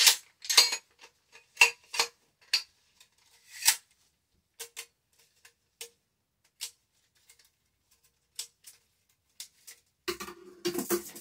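Irregular small metal clicks and taps from Remington 870 Tac-14 shotgun parts being handled and fitted together during reassembly, coming quickly at first and then sparsely. There is a short burst of scraping and handling noise near the end.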